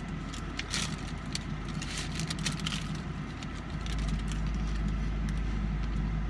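A parked car idling, heard from inside the cabin: a steady low hum that steps up louder about four seconds in. Over it, a few short crunches and clicks in the first half, from handling and biting into a hard-shell taco.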